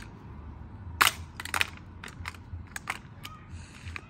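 A string of sharp plastic clicks and taps, the loudest about a second in, from a Hot Wheels loop track's launcher and a toy car being handled at its base.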